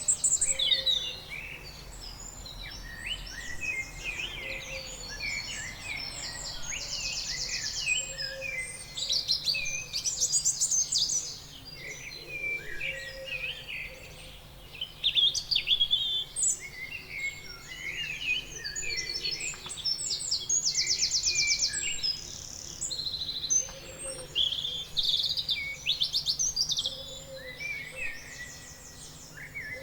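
Several birds chirping and calling, with overlapping short chirps and sweeping whistles, and now and then a rapid buzzy trill lasting about a second.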